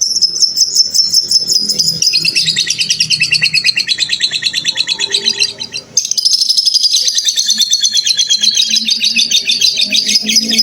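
Lovebird giving long ngekek chatter: very rapid, evenly repeated high notes strung into a continuous trill that slowly falls in pitch. It breaks briefly just past the middle, then a second long run starts at a higher pitch and falls again.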